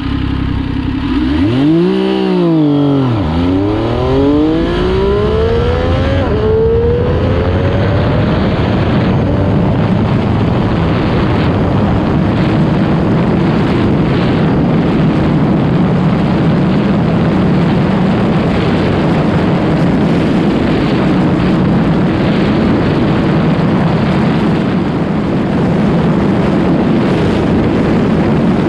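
MV Agusta F3 800's three-cylinder engine at full throttle from a standstill, its pitch rising steeply and dropping at gear changes about two and a half and six seconds in. Through the higher gears the engine note climbs slowly, with a steady rush of wind on the microphone at very high speed.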